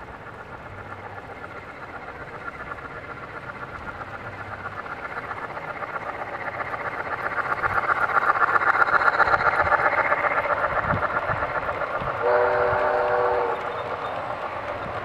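MTH Triplex model steam locomotive's sound system giving fast, even steam chuffing that grows louder as the engine approaches and passes, then eases off. Near the end, a short whistle blast of about a second and a half sounds while the freight cars roll by on the track.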